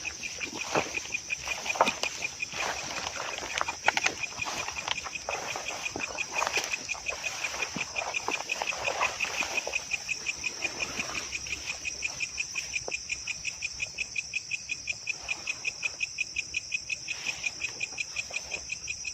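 Insects chirping in a steady, fast pulse of about four chirps a second over a continuous higher buzz. Through the first half there are footsteps and rustling through undergrowth, which fade out about eleven seconds in.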